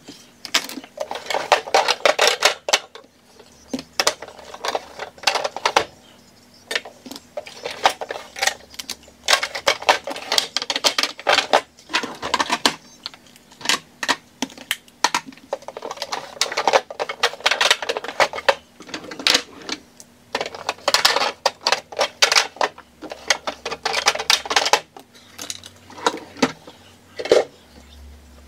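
Plastic makeup compacts, palettes and tubes clicking and clattering against each other and the glass vanity top as they are handled and put away into a drawer, in bursts of rapid knocks with short pauses between.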